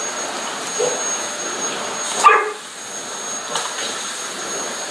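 Vacuum cleaner running with a steady high whine while a dog barks at it a few times, the loudest bark a little past two seconds in.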